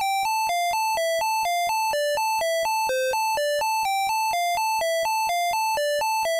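ZX Spectrum AY sound-chip tune: a single buzzy voice playing a quick run of short, clipped notes, about four a second, hopping between a few high pitches with no bass underneath.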